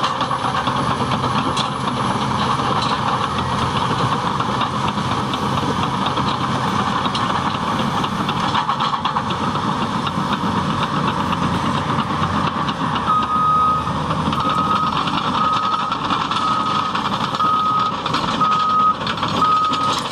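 Caterpillar D6T bulldozer's diesel engine running under work. About two-thirds of the way through, its reversing alarm starts beeping, about once a second, as the dozer backs up.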